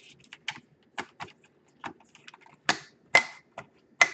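Plastic case of a Dell Inspiron 15 5000 series laptop being pressed together, its snap clips clicking into their grooves: a run of sharp, irregular clicks, about eight in four seconds, the loudest two near the end.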